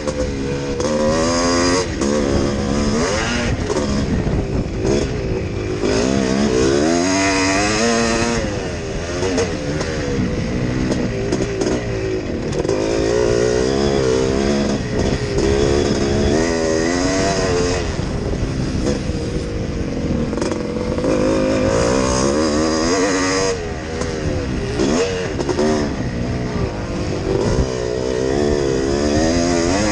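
Yamaha YZ465G two-stroke single-cylinder motocross engine heard from on board under race riding, its pitch climbing and dropping again and again as the throttle opens and closes through the gears.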